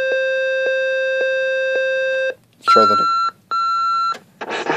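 Electronic tones played back from a cassette through a talking book player's small speaker. A steady held tone with a faint tick about twice a second cuts off suddenly a little over two seconds in. A brief snatch of voice follows, then two shorter, higher beeps, and music starts near the end.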